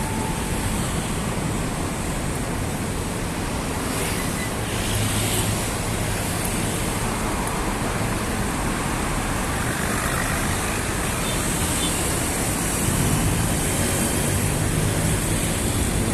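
Steady roadway traffic noise: a continuous rush of passing vehicles, with low engine hum swelling about four seconds in and again near the end.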